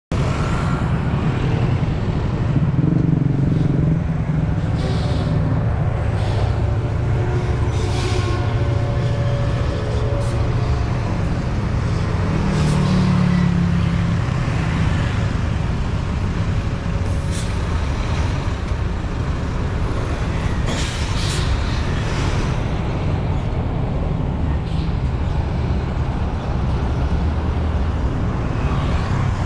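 Heavy road traffic rumbling at a junction, with truck and car engines running close by. Several short air-brake hisses stand out.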